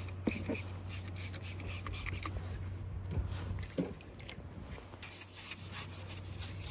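A stiff hand brush scrubbing grime off the car's front-end sheet metal around the headlight opening, making a quick run of scratchy strokes that grows busier about five seconds in. A steady low hum sits underneath.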